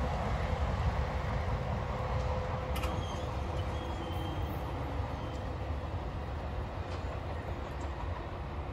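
Commuter train rumbling as it moves away from the grade crossing, its sound fading steadily, with a faint steady tone and a brief click about three seconds in.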